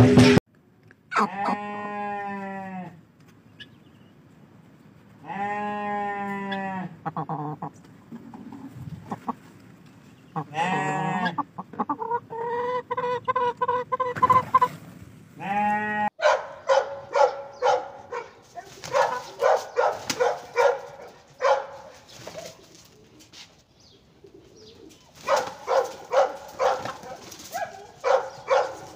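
Chickens calling: several long drawn squawks in the first half, then rapid runs of short clucks.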